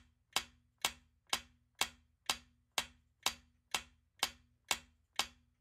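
Countdown timer sound effect: clock-like ticks, evenly spaced at about two a second, each short and sharp.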